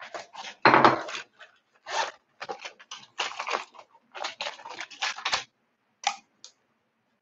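A run of short clattering and crinkling handling sounds, as of household objects being moved or rummaged through, loudest about a second in and dying away near the end.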